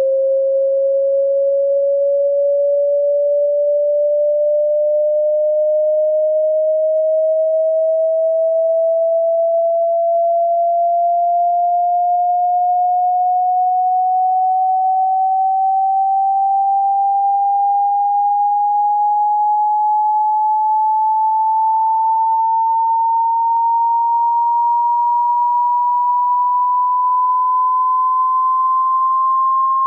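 A pure sine test tone at a steady level, gliding slowly and evenly upward in pitch and rising about an octave: a low-to-high frequency hearing-test sweep.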